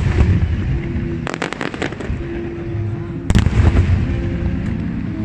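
Aerial fireworks shells bursting in sharp cracks: one at the start, a rapid cluster of several reports about a second in, and another loud burst just past three seconds, with the display's music playing underneath.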